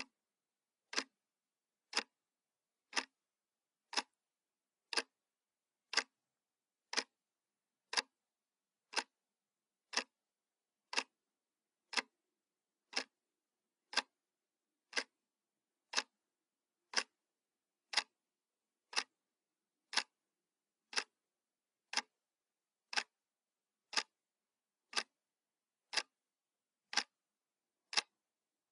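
Clock ticking sound effect: one sharp tick each second, evenly spaced, with silence between ticks.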